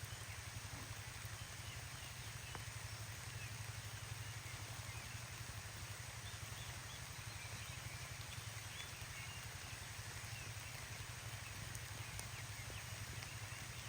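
Steady outdoor ambience of light rain falling on tall grass, with many faint, short, high chirping calls scattered through it.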